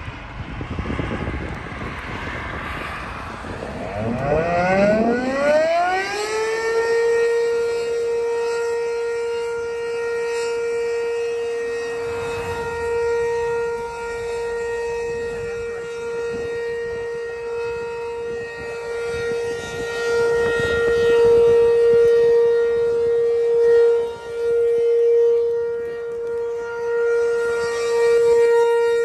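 Outdoor warning siren, of the kind sounded for a tornado, winding up about four seconds in. Its pitch rises and then settles into one steady wailing tone that swells and fades in loudness.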